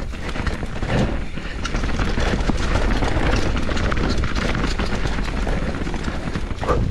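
Canyon Torque mountain bike riding fast down a rocky dirt trail: tyres crunching over stones and roots, with the bike rattling and clattering in quick, uneven knocks over a steady low rumble of wind on the microphone. It gets louder about two seconds in.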